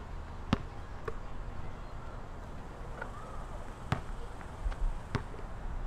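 A basketball knocking on an outdoor court four times at uneven intervals, over a low rumble of wind on the microphone.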